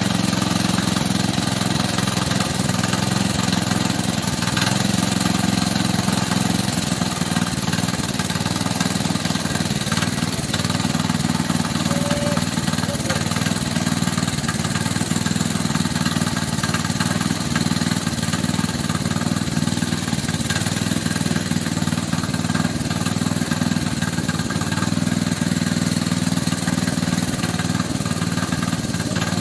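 Small single-cylinder petrol engine of a walk-behind power tiller running steadily at an even speed, without revving.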